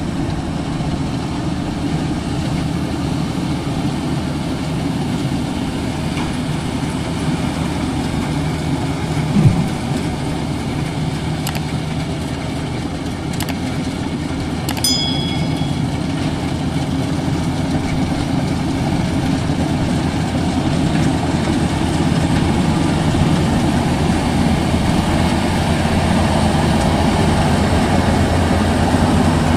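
Maxxi Bimo 102L rice combine harvester running steadily as it harvests a flooded paddy, growing louder over the last third as it comes closer. A brief thump about a third of the way in is the loudest moment, and a few sharp clicks and a short high chime sound near the middle.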